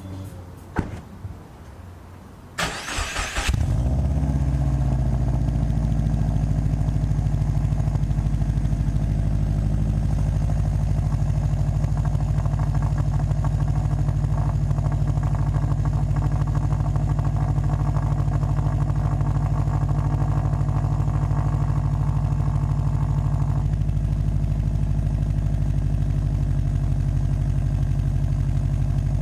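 A few light clicks, then a Subaru WRX's turbocharged flat-four boxer engine cranks for about a second, catches and settles into a steady idle. The idle carries the exhaust leak and turbulence at the downpipe-to-cat-back flange joint.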